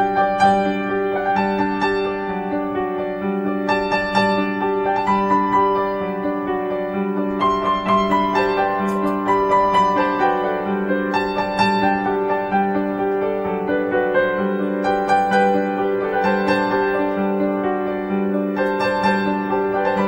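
Background piano music: soft, gently paced notes over a held low accompaniment.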